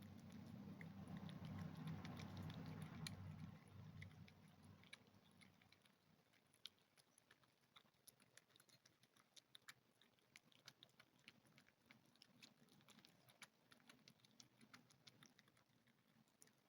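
A Maine Coon cat crunching dry food: faint, irregular crunching clicks, several a second, with a low rumble over the first few seconds.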